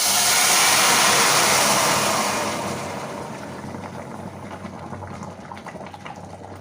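Boiling water poured into a pot where a duck is browning in ghee: a loud rushing sizzle for about two and a half seconds, dying down into quieter bubbling and crackling.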